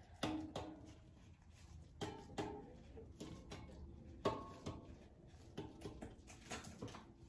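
Taut steel cutting wires of a Goodspeed multi-wire soap cutter plucked by gloved fingers, giving about ten faint, short ringing twangs at uneven intervals as the wire tension is checked.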